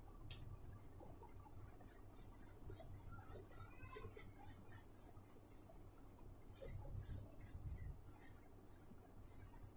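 Paintbrush scrubbing back and forth on paper: a faint run of quick, scratchy strokes, about three or four a second, with short pauses between runs.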